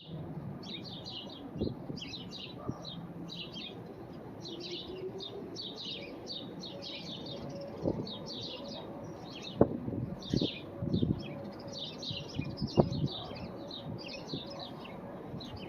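Small birds chirping steadily in quick clusters, broken by a few sharp knocks. From about six seconds in, a faint steady tone of a distant Whelen outdoor warning siren sounding its alert tone comes in.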